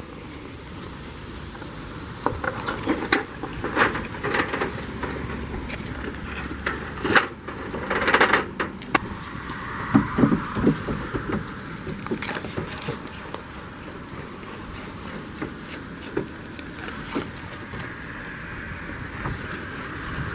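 Irregular sharp knocks and clicks of goat hooves on wooden planks as a goat clambers onto and moves about on a wooden bench and table, over a steady background hum.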